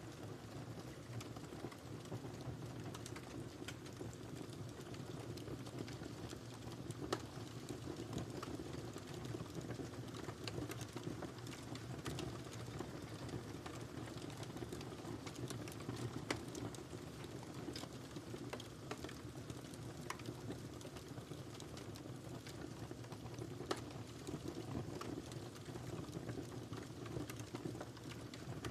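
Wood fire crackling in a fireplace: a steady low rush of burning with irregular small crackles and a few sharper single pops.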